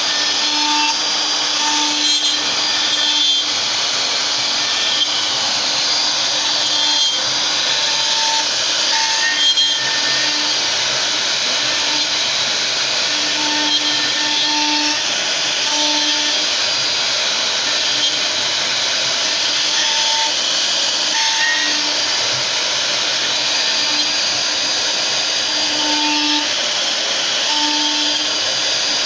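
CNC router machining wood: a steady, loud running noise from the spindle and cutter, with short pitched tones that come and go every second or so as the machine moves.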